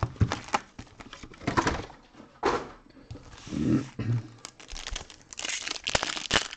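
Foil trading-card packs (2020 Donruss Optic football) crinkling and rustling in irregular bursts as they are handled and sorted. Near the end, one pack is torn open.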